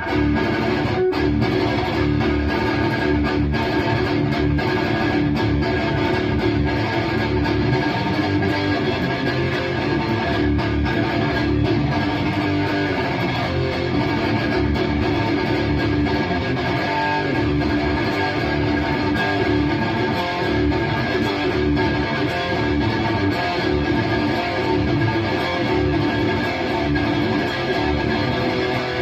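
Electric guitar through a Bogner Uberschall high-gain preamp with no effects, a raw thrash tone, played continuously as dense heavy riffing.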